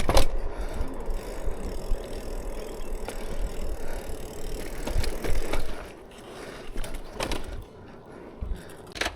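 A bicycle being ridden, with the frame rattling over a low rumble of tyres and wind, and a few sharp knocks. It quietens about six seconds in, as the bike slows.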